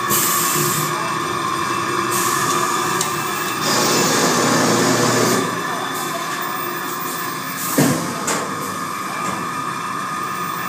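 Automatic mop-making machinery running: a steady mechanical hum with several steady tones, overlaid by stretches of hiss that are loudest from about four to five and a half seconds in, and one sharp knock about eight seconds in.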